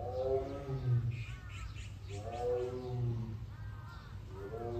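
Siberian tiger calling over and over, a deep call that rises and falls, about one every two seconds.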